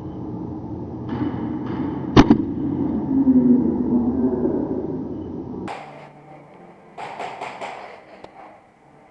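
Airsoft gunfire in an indoor arena: one sharp crack about two seconds in over a steady rumble of movement, then a quick run of rapid shots near the end.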